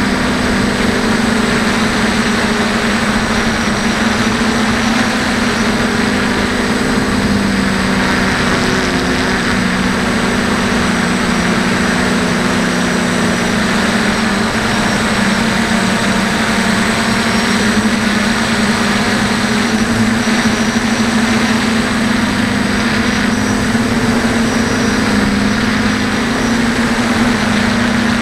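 DJI F450 quadcopter's electric motors and propellers humming steadily in flight, heard from the onboard camera, with wind noise. The pitch drifts slightly up and down as the motors change speed.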